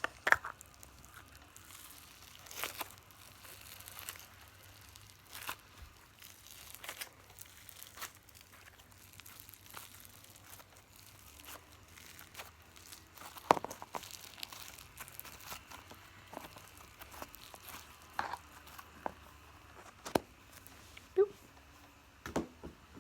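Intermittent crinkling and tearing of a slime toy's plastic packaging being opened and handled, with scattered short clicks and crackles.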